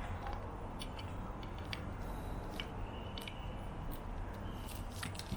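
Small scattered clicks and rustles of a plastic power adapter and its cable being handled, over a steady low background hum.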